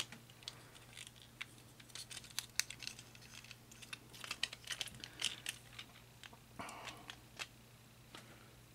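Faint, scattered clicks and ticks of a plastic Transformers action figure being handled and its parts pushed into place, with a short rustle about seven seconds in.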